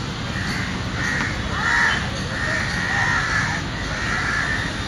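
Crows cawing, a run of harsh repeated calls loudest about two seconds in, over a steady low rumble.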